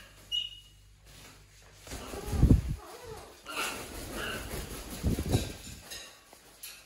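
A large macaw flapping its wings as it lands on a wooden branch perch, with heavy wing whooshes about two and a half seconds in and again about five seconds in. Short bird chirps come just after the start and around the middle.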